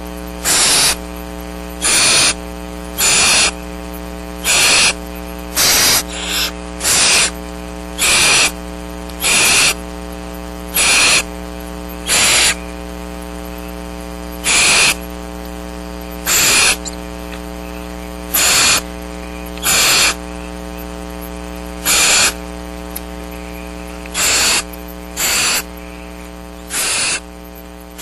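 Barn owl owlets giving their raspy, hissing food-begging calls, about half a second each and repeated every second or two, over a steady electrical hum.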